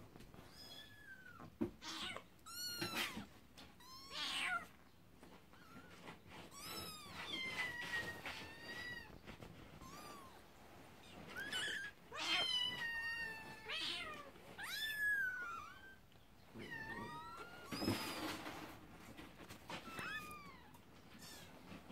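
Young Scottish Fold kittens mewing over and over: thin, high-pitched cries that rise and fall, coming every second or two, with a few brief rustles.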